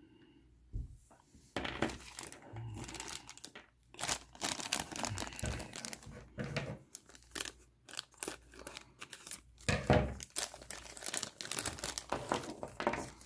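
Plastic packaging bags crinkling and tearing as bagged plastic miniatures are handled and opened. It starts about a second and a half in and goes in quick rustling clusters with short pauses.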